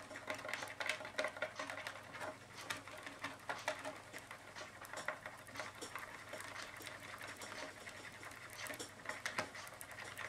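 A small batch of two-part epoxy being stirred on a mixing pad, with rapid, irregular scraping and ticking from the stirring.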